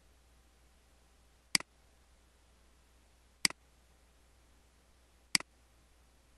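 Three computer mouse clicks about two seconds apart, each a sharp click followed at once by a smaller second tick, over a faint steady low hum.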